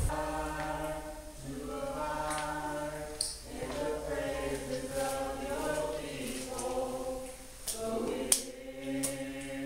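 Choir singing unaccompanied in slow, held notes, with a few short clicks or taps over it, the loudest about eight seconds in.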